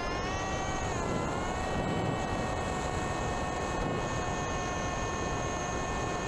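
Motor and propeller of an FPV model aircraft in flight, heard from its onboard camera: a steady whine over rushing wind noise. The pitch dips slightly about a second in, then holds steady.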